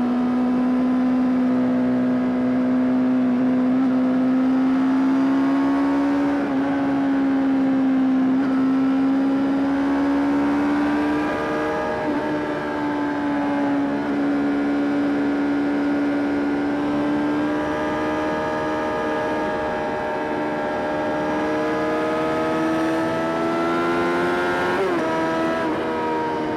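Honda CBR600RR's inline-four engine running at steady throttle while riding, its pitch rising and falling slowly and evenly, with a brief flick in pitch near the end.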